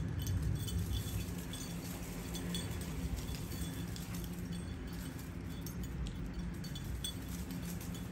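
Dogs playing outdoors: scattered light clinks and ticks over a steady low rumble.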